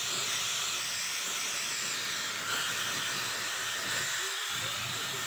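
Dyson Supersonic hair dryer blowing steadily, an even airy hiss whose tone shifts slightly about halfway through.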